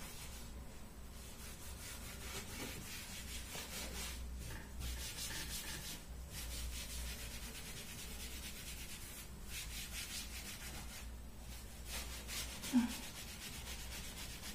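A wet cloth with degreasing paste being rubbed over kitchen cabinet surfaces in quick repeated strokes, giving a steady scrubbing hiss.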